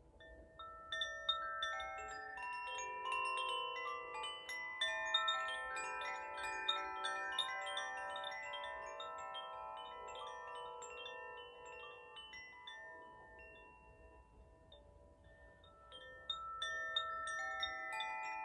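Tuned wind chimes ringing in a flurry of many overlapping bright notes, each left to ring on. The notes thin out past the middle, and a fresh flurry begins near the end.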